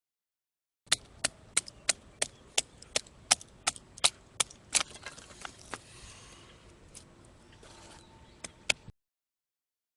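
Wood being chopped: about a dozen sharp wooden strikes at roughly three a second, then a few scattered strikes.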